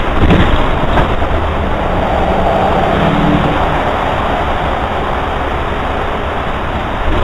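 Running noise inside a city bus under way, picked up by its onboard camera: steady engine and road noise, with a few short knocks in the first second.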